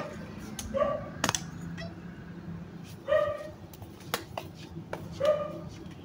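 A dog barking, one short bark about every two seconds, with a few sharp knocks and taps between the barks.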